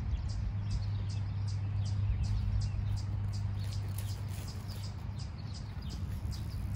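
A bird chirping over and over, about three short high chirps a second, over a steady low hum.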